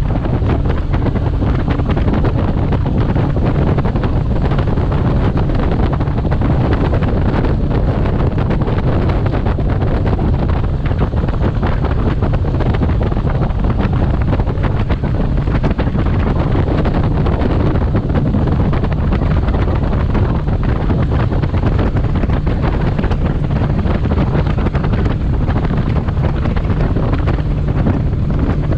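Heavy wind noise on the microphone over the steady sound of a Falcon bass boat running fast, its outboard motor and hull on the water.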